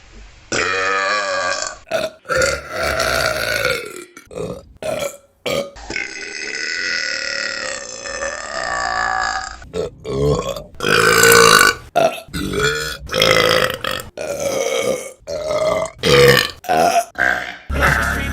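Women burping, one clip cut straight into the next: a long, pitched burp lasting a few seconds near the start, another long drawn-out burp of about four seconds in the middle, then a rapid run of shorter burps.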